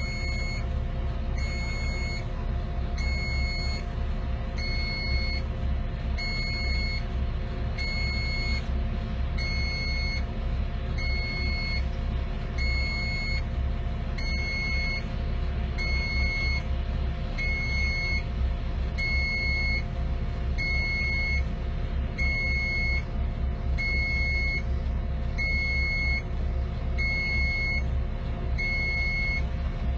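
A heavy vehicle's reversing alarm beeps steadily at the same pitch, about once every second and a half, over the continuous rumble of its engine.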